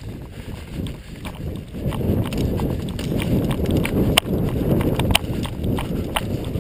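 Footsteps and gear rustling of an airsoft player moving at pace, with sharp single cracks of airsoft guns firing about once a second; the loudest shots are about four and five seconds in.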